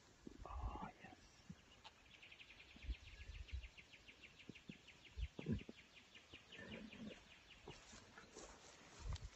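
A faint, high, evenly pulsed trill of rapid chirps, starting about two seconds in and lasting nearly six seconds, over scattered low thumps.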